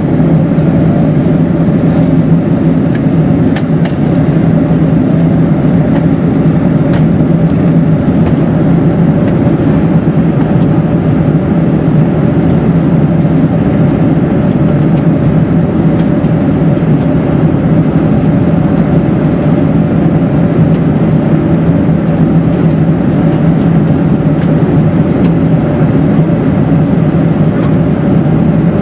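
Steady cabin noise inside a Boeing 747-400 in flight: the drone of its GE turbofan engines and the rush of air over the fuselage, with a low steady hum running through it.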